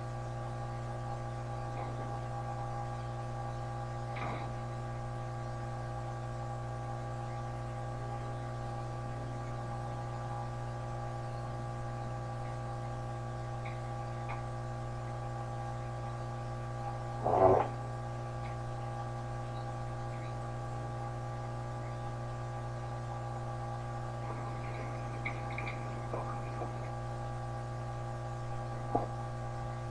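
Steady electrical mains hum, with a short burst of sound about halfway through and a couple of faint ticks.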